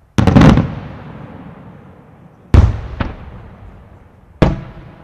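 Aerial firework shells bursting: a quick cluster of bangs just after the start, the loudest, then two bangs half a second apart about two and a half seconds in, and a last bang near the end, each trailing off in a long echo.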